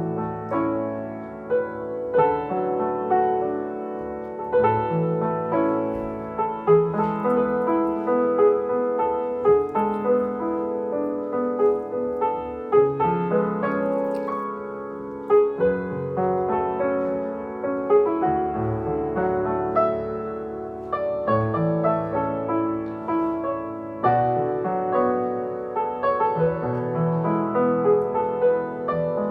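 Solo piano music: a continuous flow of struck notes and chords.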